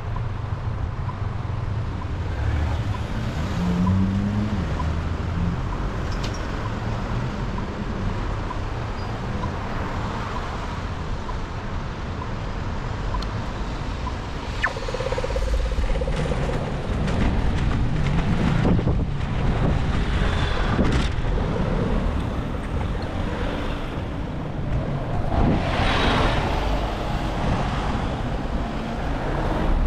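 Road traffic on a busy multi-lane road: a steady rumble of cars and heavier vehicles passing, swelling louder twice, about two thirds of the way through and again near the end.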